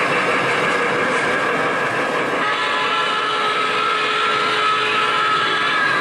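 O gauge three-rail model steam train with its passenger cars running past on curved track: a steady rolling rumble of wheels on rails. A steady high tone joins about halfway through.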